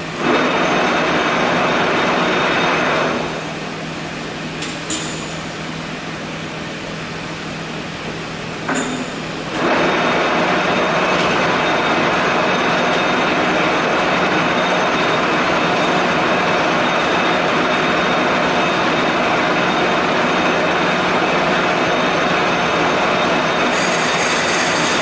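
Factory machinery running with a loud, steady grinding-cutting noise over a low hum; the noise drops back about three seconds in, with a couple of sharp clicks, and comes back on at full level about ten seconds in.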